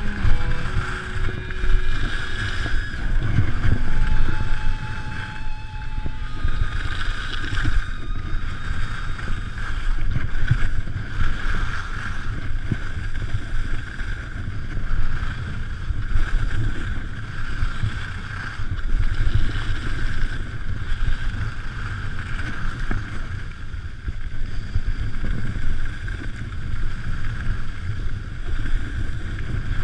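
Wind rushing over a GoPro Hero3 camera's microphone, a steady low rumble, with skis hissing over the snow on a downhill run.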